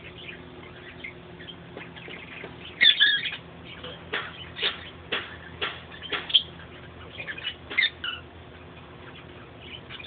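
Small pet parrots, a cockatiel and a lovebird, squawking and chirping: a loud squawk about three seconds in, then a string of short, sharp chirps.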